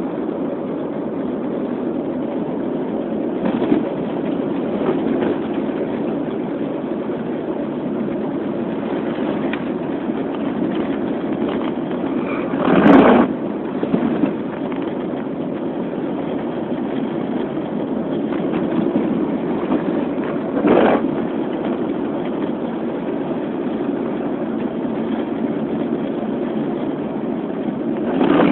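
Steady road and engine noise heard inside a moving car, with a few brief louder swells, the loudest about halfway through.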